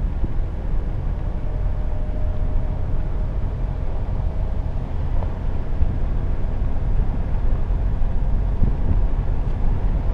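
Steady low road rumble of a moving car, tyres and engine, with wind rushing over the microphone.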